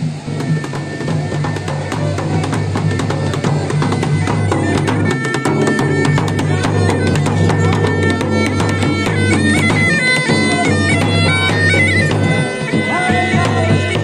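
Procession band of bagpipes and dhol drums, the Garhwali mashakbeen playing a melody over a steady drone, accompanying a goddess's doli (palanquin) procession. It grows louder over the first couple of seconds, and the drum beats thicken about four seconds in.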